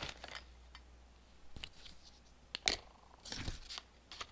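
Handling sounds from a small plastic toy and its packaging: a few sharp separate clicks, the sharpest near the middle, and a short crinkling rustle about three seconds in.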